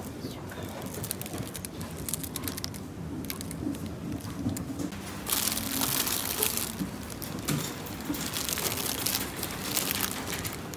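Thin plastic produce bag crinkling as it is picked up and handled, in a run of crackly bursts through the second half.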